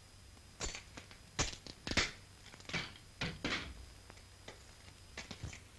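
A run of about eight sharp cracks and crunches at uneven intervals, the loudest about two seconds in, over the faint steady hum and hiss of an old film soundtrack.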